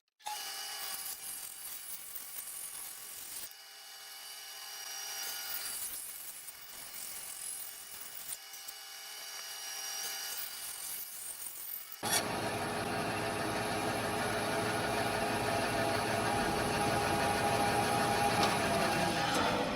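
Bandsaw running and cutting curves into the thick wooden sides of a box, the box swung through the blade on a circle-cutting jig's pivot. The sound changes level abruptly twice and is loudest in the last third.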